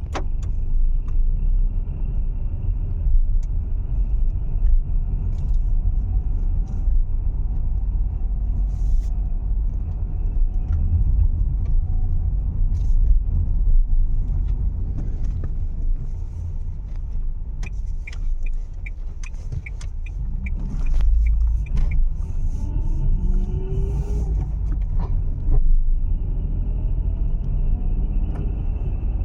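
Dacia Sandero running with a steady low rumble, recorded to show a noise in its engine that the owner is trying to trace. A short run of quick, even ticks comes about two-thirds of the way in, followed by a whine that rises and falls in pitch.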